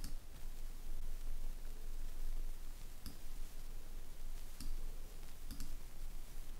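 A handful of sharp computer mouse clicks, single and in quick pairs, spread over a few seconds, over a faint steady hiss.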